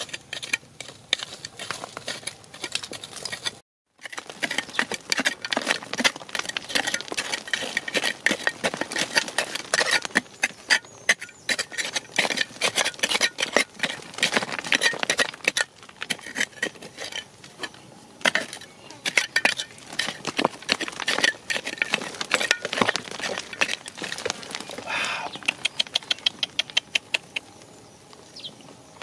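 Hand digging in stony red soil: a tool blade scraping and chopping the dirt, with many quick sharp clicks and clatters of small stones and clods being raked and tossed. There is a brief dropout of sound a few seconds in.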